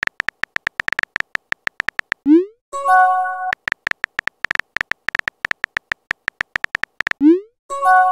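Texting-app sound effects: rapid runs of short keyboard-tap clicks, each run ending in a quick rising swoosh as the message is sent, followed by a short chime of several steady tones. The type, swoosh and chime sequence happens twice, the second chime coming right at the end.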